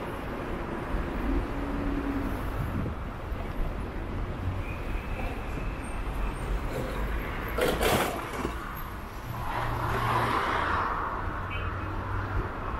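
Street ambience heard while riding along: a steady rumble of road and wind noise with traffic around, and a brief louder passing sound about eight seconds in.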